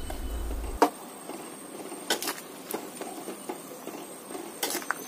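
Metal ladle stirring a thick vegetable and spice mixture in a stainless steel pan, with a few irregular clinks and scrapes of the ladle against the pan.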